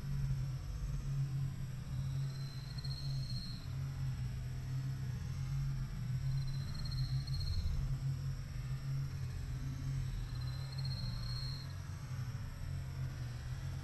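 An insect's high, even buzzing call, each about a second long, repeating roughly every four seconds over a steady low hum.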